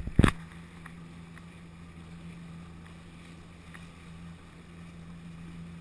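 A steady low engine hum with light water and wind noise, opening with one loud knock.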